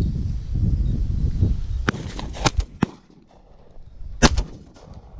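A Remington Versa Max 12-gauge semi-automatic shotgun fires a single shot about four seconds in. Before it, a low rumble dies away and a few sharp, light clicks sound.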